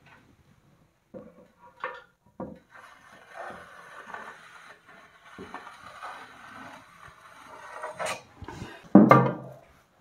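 A metal plasterer's rule scraping along wet gypsum plaster on a window reveal, a steady rasping scrape lasting several seconds. A few light knocks come before it, and a loud knock about nine seconds in.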